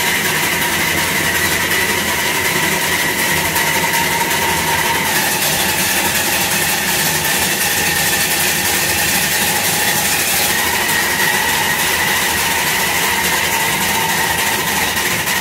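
A 7¼-inch-gauge miniature railway train running steadily on the rails inside a corrugated-steel tunnel, pulled by a vertical-boiler steam engine. There is a continuous loud rumble of wheels and running gear, with a steady high whine over it that shifts slightly in pitch about a third of the way in and again about two-thirds in.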